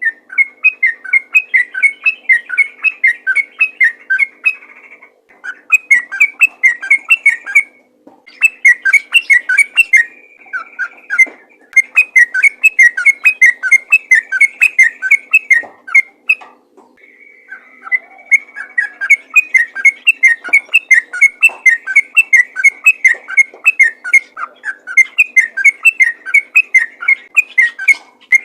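Sooty-headed bulbul (trucukan) singing a fast, continuous run of liquid whistled notes, in long phrases broken by a few brief pauses.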